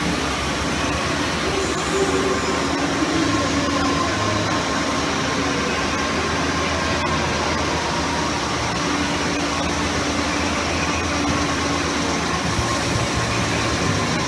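Ice resurfacing machine running steadily as it cleans the rink, a constant drone with background chatter.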